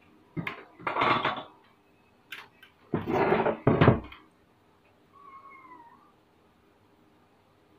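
Metal cabinet of a Panasonic mini hi-fi system being handled and shifted on a bench: two loud bouts of scraping and knocking, about a second in and again around three to four seconds in. A cat gives one faint meow a little after five seconds.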